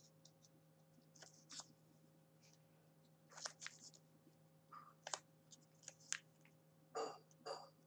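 Faint, scattered rustles and small clicks of a small paper card being handled and fitted by hand, a few louder crackles near the end.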